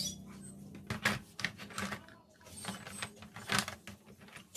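Irregular mechanical clicks and knocks, a few scattered across the few seconds, the loudest about a second in and again near three and a half seconds in.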